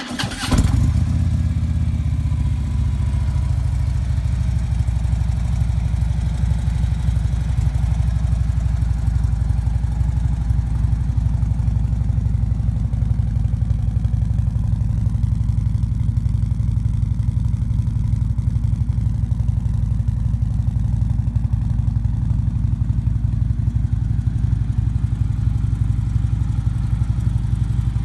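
2015 Harley-Davidson Ultra Limited's V-twin engine, exhausting through a decat header and Vance & Hines Monster Rounds mufflers, cold-started: it catches with a short burst in the first second and then settles into a steady idle.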